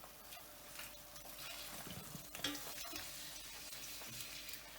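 An egg frying in vegetable oil in a pan, sizzling steadily, with a few scrapes and taps of a spatula as it is flipped. The loudest of these comes about two and a half seconds in.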